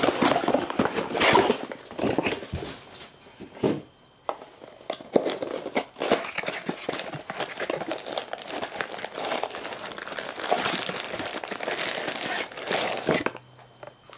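Plastic packaging crinkling and rustling as it is handled, with many small clicks and knocks, easing off briefly once and dying away shortly before the end.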